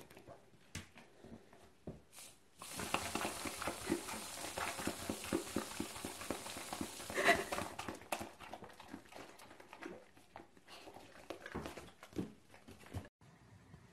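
Aerosol whipped-cream can hissing for about five seconds, starting about three seconds in, as it sprays into a puppy's mouth, with the puppy's quick licking and smacking through it. Scattered puppy mouth sounds come before and after the spray.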